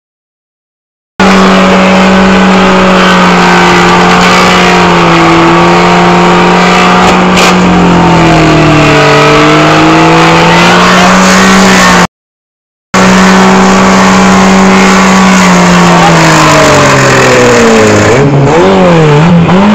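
VW Golf Mk2 engine held at high revs in a burnout, with the harsh grinding noise of the wheel spinning on its bare rim against the asphalt after the tyre has burned off. The revs sag and recover a couple of times, and the sound cuts out to silence twice for about a second.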